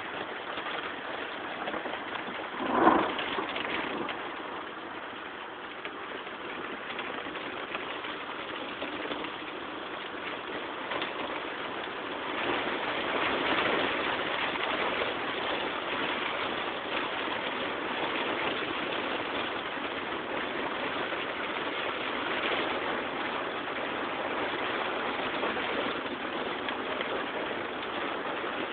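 Strong rain hitting a car, heard from inside as a steady hiss, with one brief loud thump about three seconds in. The rain gets a little louder about twelve seconds in.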